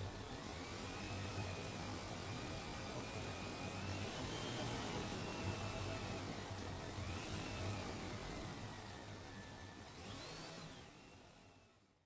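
A vehicle motor running steadily, with a low hum and a thin whine that rises and falls in pitch as the load changes. It fades out near the end.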